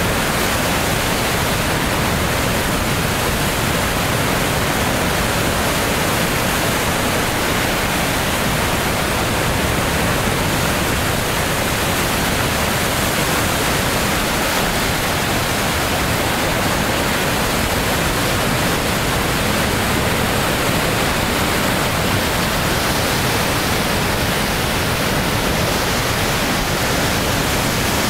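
River in flood pouring through a weir: a loud, steady rush of churning white water.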